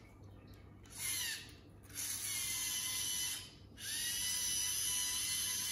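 LEGO Mindstorms EV3 motor whirring through its gears as it drives the robot's belt lift mechanism, in three runs: a short one about a second in, then a longer one, then one of nearly three seconds that winds up at the start and winds down as it stops.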